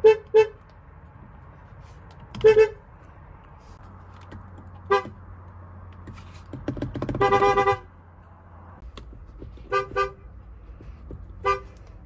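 BMW car horns sounded from the steering-wheel horn pad, several cars in turn, mostly in short toots. Two quick toots open the sequence, single toots follow, then one longer honk of about a second, two more quick toots and a last single toot.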